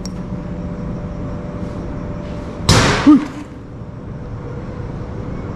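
A loud, sudden bang about halfway through, followed at once by a second, shorter knock, over a faint steady hum.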